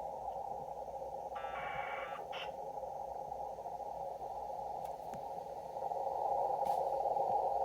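Yaesu HF transceiver receiving steady band-noise hiss through a narrow CW filter while tuning for a Morse station, with no clear keyed signal; the station heard a moment before turns out not to be there. A brief higher buzz comes about a second and a half in, and the hiss grows louder near the end.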